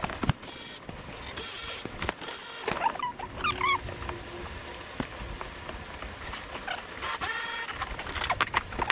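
Engine parts and tools being handled during work on an EGR valve and throttle body: scattered clicks and knocks with several short scraping or rubbing noises, and a brief squeak about three and a half seconds in.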